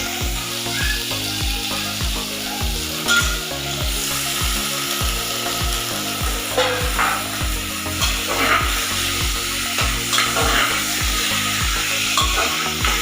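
Chicken pieces sizzling in hot oil with fried onions in an open pressure cooker, stirred now and then with a spatula that scrapes the pan several times. A steady low pulse runs underneath.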